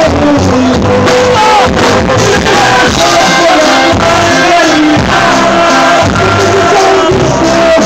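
A live band playing a corrido, loud and continuous: a button accordion carrying the melody over a drum kit's steady beat.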